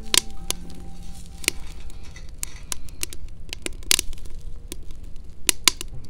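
Wood fire crackling, with irregular sharp pops scattered through.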